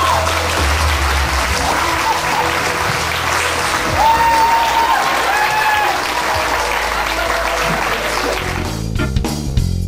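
Audience applause over background music. Near the end the applause drops away and the music with its beat carries on alone.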